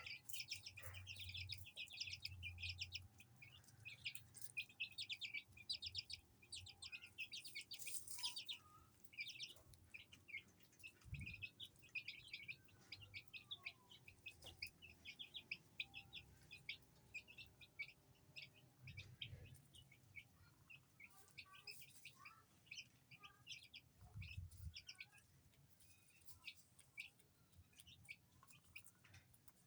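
Baby chicks peeping in a steady stream of rapid, high, short chirps, busiest in the first several seconds and thinning out after. Faint overall.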